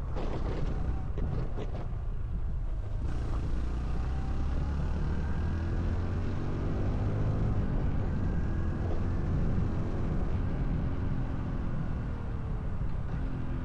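Honda CT125 Hunter Cub's single-cylinder four-stroke engine running under way, its note rising in pitch as it accelerates, dropping briefly and climbing again near the end. Wind buffets the microphone for the first few seconds.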